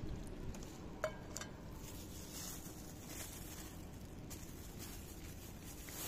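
Two cats chewing and licking wet canned food and dry kibble from a bowl, with soft wet smacking and small crunches. A sharp click comes about a second in.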